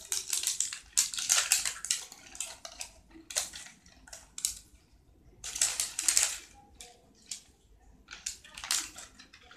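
Crinkly plastic wrapping being torn and crumpled off a toy ball, in several crackling bursts with short pauses between them.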